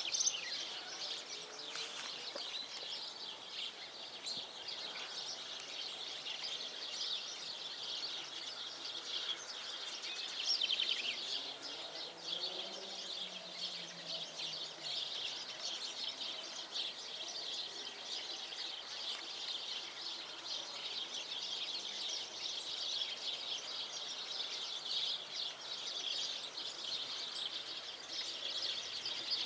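A steady, dense chorus of high-pitched chirping and rapid trilling from many small animals in the surroundings.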